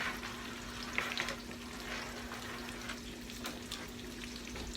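Chicken simmering in curry sauce in a skillet, with a steady soft sizzle. A steady low hum runs underneath, and a few light clicks come about a second in and again later.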